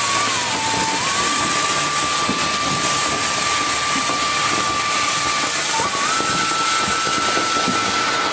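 Flower-pot firework fountain spraying sparks with a loud, steady hiss. A steady high whistling tone runs along with it and steps up a little in pitch about six seconds in.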